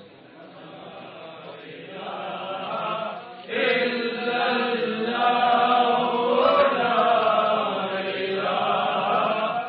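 A group of men chanting together in devotional recitation, quieter at first and much louder from about three and a half seconds in.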